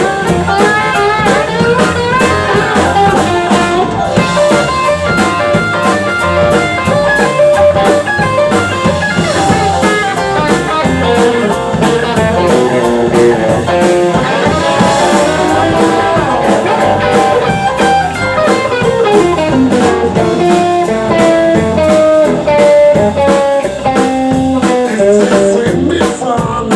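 Live band playing an instrumental passage: a lead guitar line moving over a steady drum-kit beat, in a blues-rock style.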